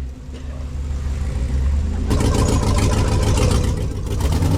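Off-road 4x4's engine running at a low, steady note, then revving harder and louder about two seconds in.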